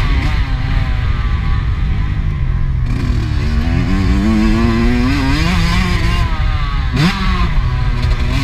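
Motocross bike engine under way on a dirt track, revving up and down as it accelerates and backs off, with a quick sharp rev about seven seconds in. Heavy wind rumble on the helmet-camera microphone lies under it.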